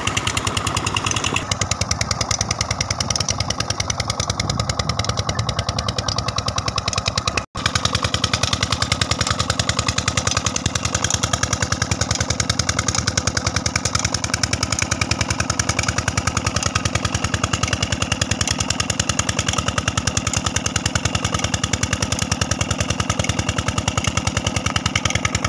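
Old stationary diesel engine running a tubewell pump at a steady speed, its exhaust beating in a rapid, even rhythm. The sound drops out for an instant about seven and a half seconds in.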